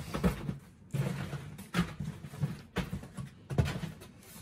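Items and packaging being handled in a cardboard box: irregular knocks and rustles.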